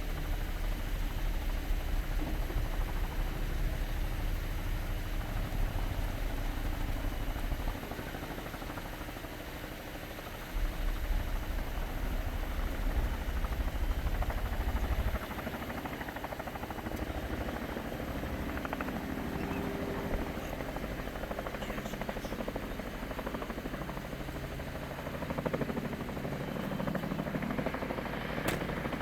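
Low, steady helicopter rotor and engine rumble from Boeing CH-47 Chinook tandem-rotor helicopters, stepping down in level about 8 seconds in, back up near 11 seconds and down again around 15 seconds.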